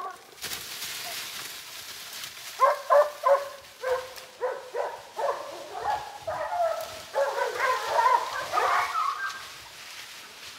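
West Siberian Laika hunting dogs barking repeatedly at a treed black bear, baying up the tree to hold the bear there. A soft rustle at first; the barks start about two and a half seconds in, about three a second, and come thicker towards the end.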